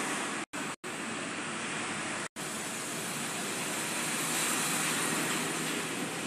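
Steady rushing noise with no distinct tones, broken by three brief dropouts to dead silence in the first couple of seconds.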